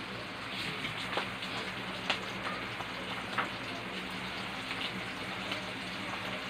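Dried fish (tuyo) frying in hot oil in a pan: a steady sizzle with scattered sharp pops and crackles.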